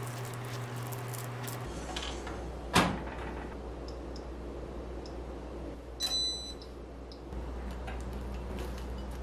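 Countertop toaster oven: a sharp click about three seconds in, a few light ticks, then a short high ding about six seconds in, as the toaster is shut, set and finishes its bake.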